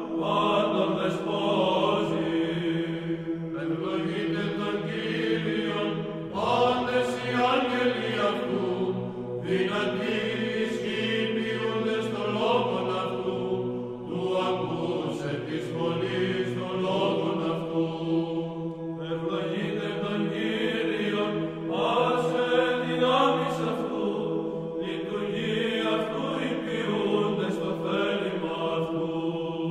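Byzantine chant: a sung melody winding over a steady held drone note, in phrases a few seconds long.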